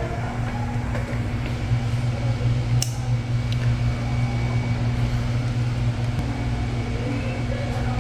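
1996 Ventisilva VPL 65 cm wall fan running, its 150 W motor giving a steady low hum over the rush of air, with a sharp click about three seconds in.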